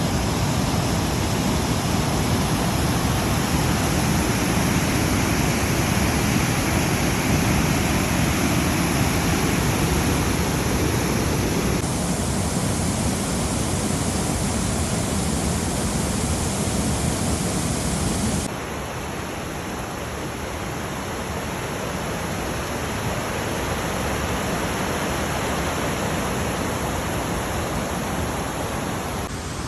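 Reekie Linn waterfall: a steady, loud rush of falling water. It changes abruptly in tone about 12 seconds in and again about 18 seconds in, when it becomes a little quieter.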